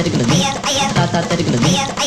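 Background music with a steady, repeating beat and a short melodic phrase that recurs.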